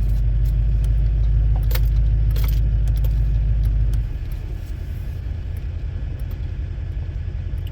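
2012 Duramax diesel pickup's engine and road rumble heard from inside the cab, with a few light rattles a couple of seconds in. The rumble drops off noticeably about halfway through.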